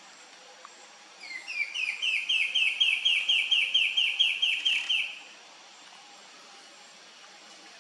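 An antbird singing one song of about sixteen short, clear notes, about four a second. The notes rise in pitch over the first few and then hold level. The song starts about a second in and stops about five seconds in.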